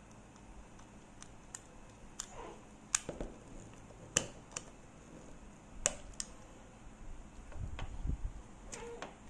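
Sharp little clicks and taps of a screwdriver working the terminal screws of a plastic wall socket, coming irregularly a second or so apart. A duller low handling rumble comes near the end.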